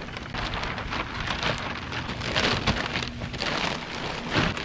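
Heavy plastic shipping wrap crinkling and crackling as it is handled and pulled away from the cardboard-wrapped kayak.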